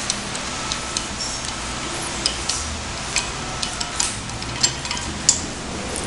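Hand-operated banding tool tensioning stainless steel strapping around a pipe: short metallic clicks and ticks at irregular intervals from the tool and strap, over a steady hiss.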